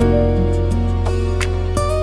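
Slow, soft instrumental music: held bass and pad notes under a few plucked guitar-like notes.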